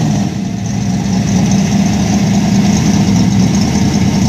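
1972 Dodge Demon's 340 cubic-inch V8 idling steadily and loudly.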